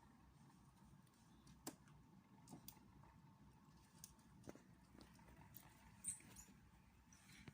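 Faint rain: scattered raindrop ticks and light patter over a low, steady rumble.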